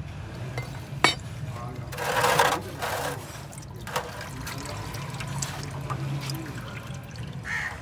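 Used engine oil draining from a car's sump and loosened oil filter, trickling and splashing into a metal drain tray, with a few sharp handling clicks and a louder rush of noise about two seconds in, over a steady low hum.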